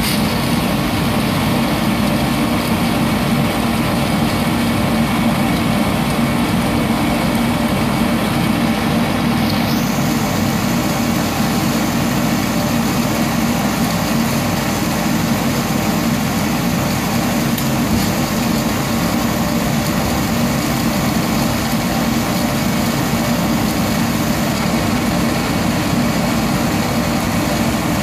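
Sonofresco fluid-bed coffee roaster running steadily, its hot-air stream churning raw green coffee beans early in the roast. The hiss gets brighter about ten seconds in.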